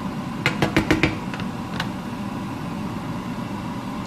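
Steady mechanical hum in a kitchen while a stir-fry cooks. A quick run of about five sharp clicks or taps comes about half a second in, and two fainter ones follow shortly after.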